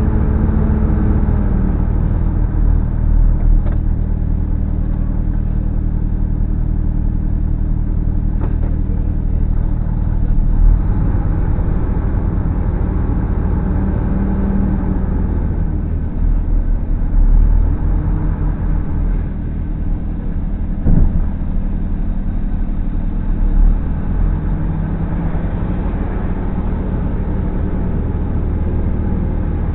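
Delivery truck's diesel engine running on the move, heard from inside the cab as a steady low drone, its pitch dropping about a second in. A few light knocks sound over it.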